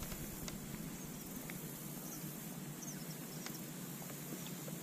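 Faint marsh ambience: a steady low hiss with a few short, high chirps from small wild creatures scattered through it.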